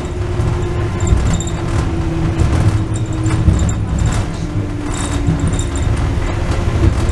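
Wuppertal Schwebebahn suspension railway car in motion, heard from inside the cabin: a steady low rumble of the running gear on the overhead rail, with a steady hum above it.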